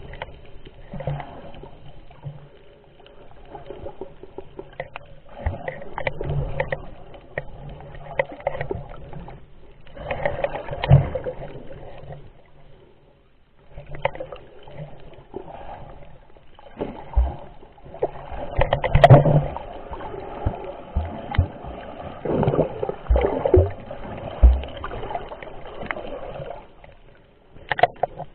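Muffled underwater water noise picked up by a camera's microphone while snorkelling: irregular sloshing and bubbling surges with short crackles, under a faint steady hum.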